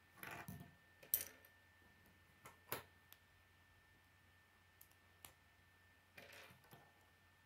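Plastic K'nex rods and connectors being handled and snapped together: several short sharp clicks, the loudest about a second in, with soft plastic rustling near the start and again near the end.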